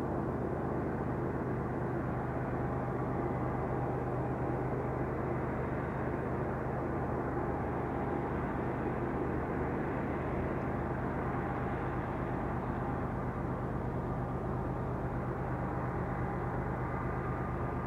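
Diesel-electric freight locomotives running with a steady low engine drone.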